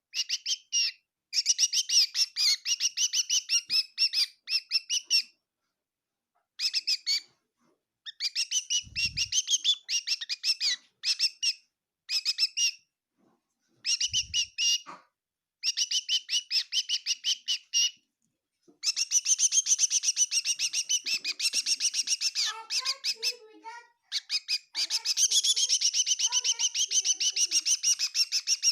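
A small bird chirping in rapid runs of short, high calls, in bouts of a few seconds broken by brief pauses. Two short low thumps come about nine and fourteen seconds in.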